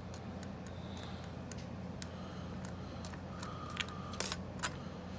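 Small metallic clicks and clinks of lock picks and a disc-detainer padlock being handled, scattered and irregular, with the loudest cluster a little past four seconds in. A steady low hum runs underneath.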